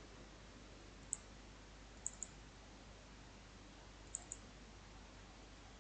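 Quiet computer mouse clicks: a single click about a second in, then two quick double-clicks, one at about two seconds and one at about four seconds, over a faint steady hiss.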